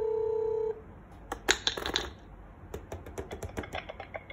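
Dahua video intercom giving a short, steady buzzing beep as the door-station call is answered on the indoor monitor, then an irregular run of clicks and rustles from a hand handling near the monitor.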